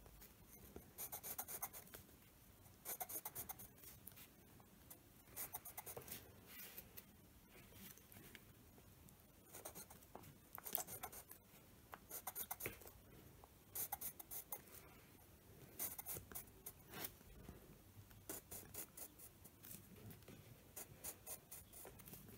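Pencil scratching on paper, drawn along a ruler in groups of quick short strokes that come every second or two; faint.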